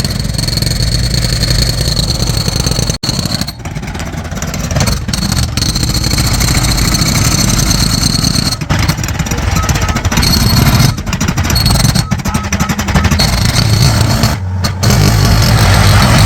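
Loud, continuous racket of engine-driven street construction equipment, with a fast rapid chatter and a steady high whine, dipping briefly a few times.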